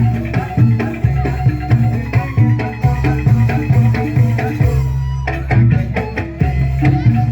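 Music with a steady beat: bass notes, pitched instruments and drums.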